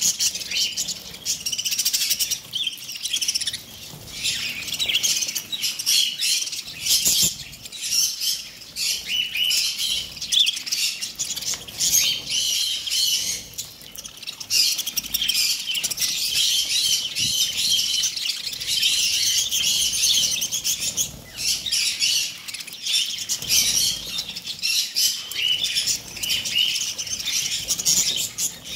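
A large flock of budgerigars chattering, with many birds chirping at once in a dense, continuous warble, and an occasional flutter of wings.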